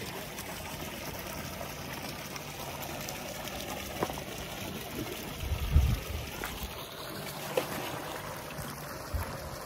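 Steady trickling of running water, with a dull low thump about six seconds in.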